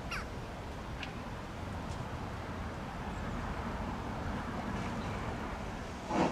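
Steady low background rumble with a short falling chirp at the start, then the first exhaust beat of a steam locomotive starting away, a sharp chuff near the end.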